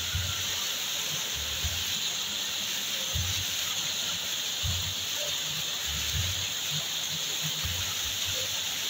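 Waterfall rushing and splashing steadily, with irregular low rumbles under the even hiss of falling water.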